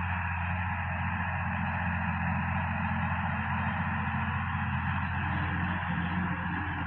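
Sonalika DI-50 RX tractor's diesel engine running steadily under load while its rear-mounted rotavator tills dry soil: a steady low drone with a hiss over it.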